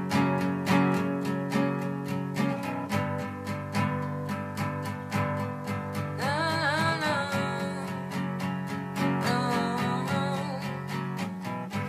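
Acoustic guitar strummed steadily, with a short wordless vocal line about six seconds in and again about nine seconds in.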